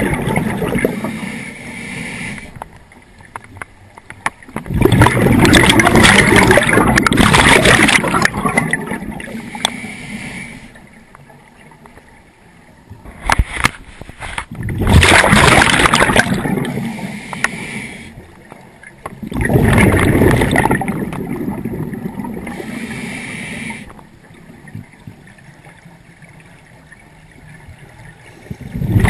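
Scuba diver's breathing through a regulator: each exhalation sends out a loud rush of gurgling bubbles lasting a few seconds, about five times with quieter pauses between breaths.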